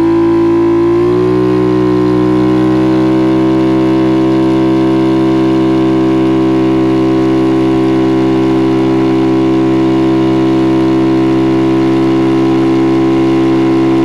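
Fuel-injected GY6 171cc single-cylinder scooter engine at full throttle: the revs climb in the first second or so, then hold one steady pitch while the scooter keeps gaining speed, as its CVT shifts up.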